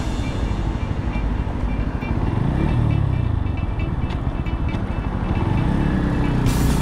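Brixton Cromwell 125's single-cylinder four-stroke engine running while the motorcycle is ridden, with road and wind noise; its pitch rises and falls a little with the throttle.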